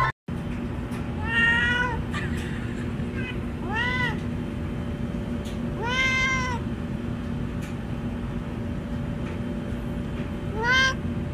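Black-and-white tuxedo domestic cat meowing repeatedly, about six meows that each rise and fall in pitch, the longest about six seconds in, over a steady low hum.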